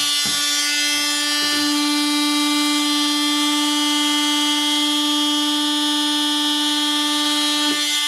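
Makita DTM51 18V brushed oscillating multi-tool running with no load on its top speed setting 6: a steady, high buzzing whine with many overtones, later called horrific next to the quieter DTM52.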